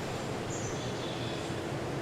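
Forest ambience: a steady rush of running water, with a faint high bird call about half a second in.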